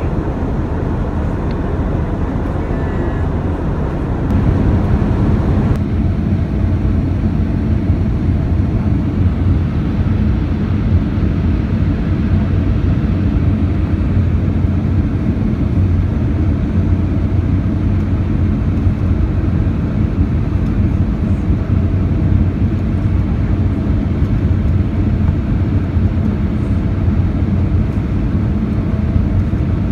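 Steady in-cabin noise of an Airbus A319 in flight: a low drone with a hum under it and a hiss above. A few seconds in, the low rumble gets louder and the hiss drops away, then it holds even.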